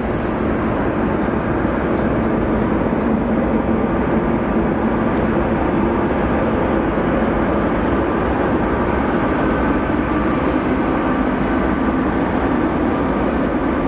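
Jet airliner engines running, a loud steady noise with a low hum, swelling a little in the first couple of seconds.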